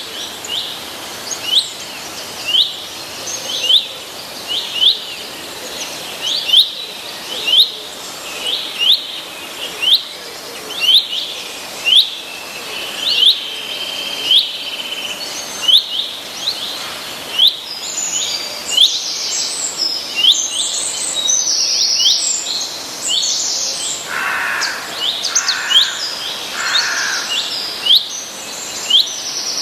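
Songbirds chirping: one bird repeats a short, sharp chirp over and over, about twice a second. From the middle on, other birds join with higher, quicker chirps, over a steady background hiss.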